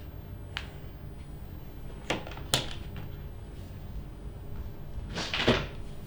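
Hands working on a bare back during a strong massage: a faint click, two sharp smacks about half a second apart, then a longer, louder cluster of strikes near the end, over a steady low room hum.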